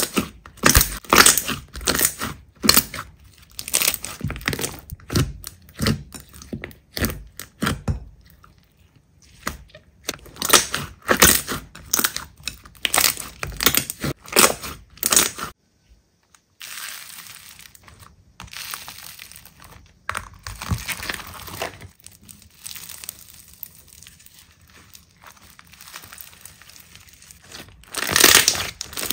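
Slime being squeezed and pressed by hand, making rapid sharp crackles and pops. It breaks off for a moment about halfway through, comes back softer, and grows louder again near the end.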